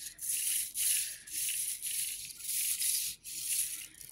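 Original Petoi Bittle robot dog's small leg servos whirring and buzzing in short raspy spurts, about six of them, as its gyroscope-driven balance corrects for being tilted by hand. The adjustments are slightly jittery.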